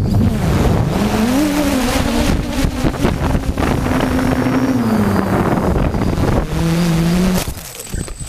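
DJI F450 quadcopter's motors and propellers whining, their pitch sliding up and down as the craft flips out of control, over a rush of air noise on the onboard microphone. Near the end the motor sound drops away as it goes down into a bush.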